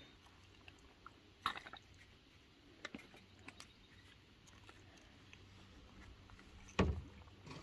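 Quiet handling of a plastic fuel bottle while refuelling an RC truck: a few small clicks and taps, then a dull thump near the end.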